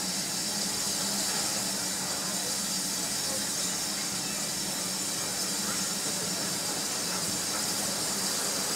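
Steam hissing steadily from an Ivatt Class 2MT tank locomotive, 41241, enveloped in its own steam, with no exhaust beats.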